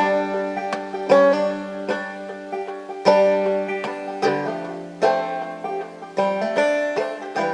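Instrumental background music: plucked string notes that start sharply and fade, over held low notes.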